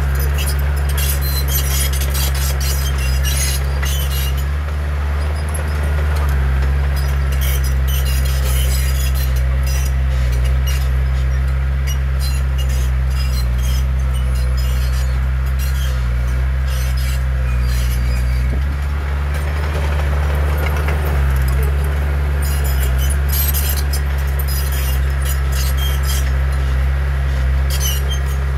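Bulldozer's diesel engine running steadily under load, with its steel crawler tracks clanking and squeaking. The engine note shifts briefly about two-thirds of the way in.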